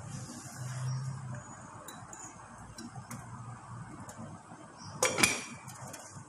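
Kitchenware clinking: a few light clicks, then about five seconds in a sharp, ringing clatter of a utensil striking a pot or dish, over a faint steady hum.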